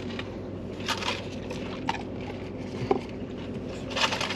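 Fast-food eating sounds: chewing and the crinkle of paper food wrappers, a few short sharp crackles and clicks about a second apart, over a steady low hum.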